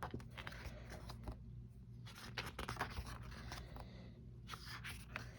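Soft paper rustling and scraping with small clicks as a photo book is handled and its pages are turned, in short bursts with brief pauses between.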